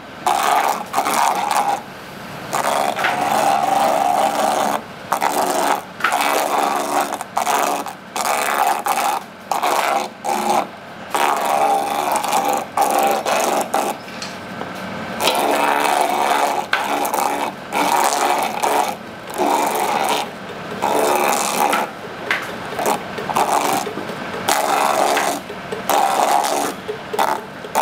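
An electric coconut-processing machine's motor running with a whine that surges and eases off every second or two as it works, with brief dips between the surges.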